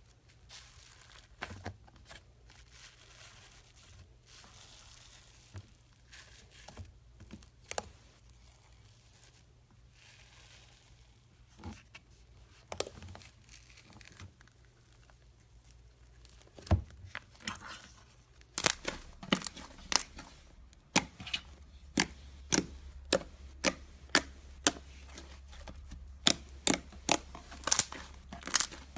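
Slime being handled with crackling and crinkling, then, from about two-thirds in, sharp clicking pops coming roughly once or twice a second as the slime is pressed and air pockets burst.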